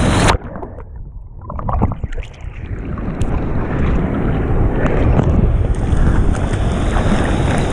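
A head-mounted GoPro goes under the water as the bodyboarder comes off the wave: the sound turns suddenly dull and muffled, a low underwater rumble, then water splashes and sloshes as it surfaces and the rushing of surf and wind on the microphone comes back.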